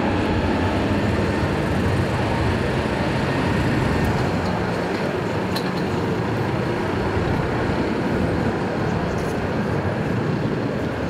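Embraer E195-E2 airliner's two Pratt & Whitney PW1900G geared turbofans at takeoff thrust: steady, loud jet engine noise as the aircraft rolls and climbs away steeply.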